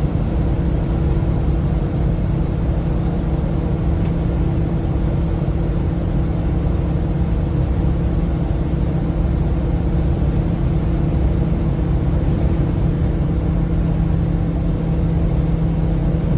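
Cabin noise inside a 2014 Winnebago Sunstar 26HE motorhome driving on the highway: a steady engine drone with a low hum, mixed with road noise, holding an even pitch at a constant speed.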